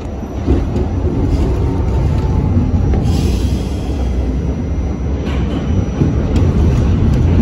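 New York subway train running, heard from inside the car: a loud, steady rumble of wheels on rail, with a brief rise of high hiss about three seconds in.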